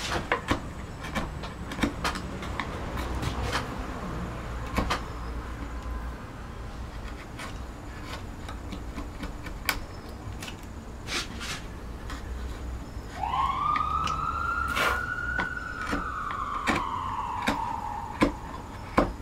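An emergency-vehicle siren passing on a nearby road: from about two-thirds of the way in, one long wail rises quickly and then falls slowly. Scattered sharp clicks of a carving gouge cutting into oak run throughout, and there is a low rumble in the first few seconds.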